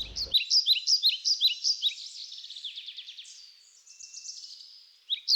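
A small songbird singing a run of quick, high, downward-slurred notes that speed up into a fast trill midway, then fade into a softer, thinner phrase near the end.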